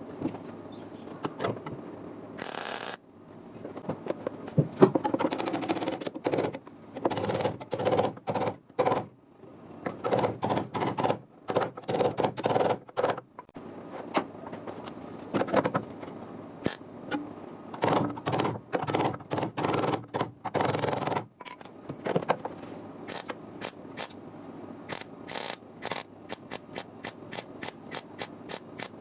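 Bodywork welding: short, irregular crackling bursts of welding, turning near the end into a quick run of brief tack or stitch pulses, about two to three a second, as a new steel panel is welded in.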